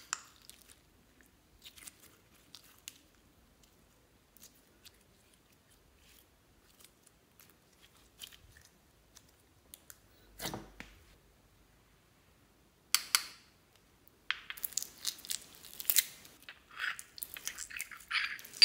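Clear slime being squeezed and kneaded by hand, giving faint sticky clicks and squelches, with one soft low knock about halfway. In the last few seconds it turns to dense crackling and popping.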